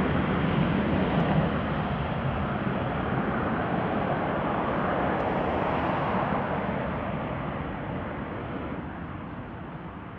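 Airbus A330-243's Rolls-Royce Trent 700 turbofan engines at takeoff thrust: a steady jet roar that fades away as the airliner accelerates down the runway away from the listener.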